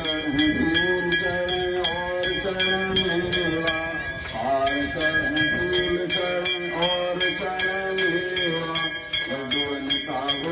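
Devotional Hindu aarti song: a voice singing a melody over a fast, even jingling beat of about four strokes a second.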